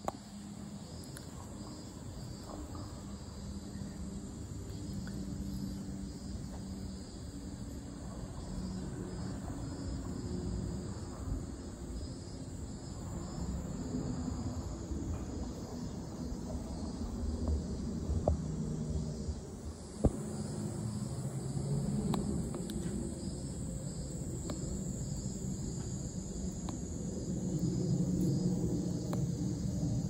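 Insects chirping steadily over a low rumble that swells near the end, with a sharp click about twenty seconds in.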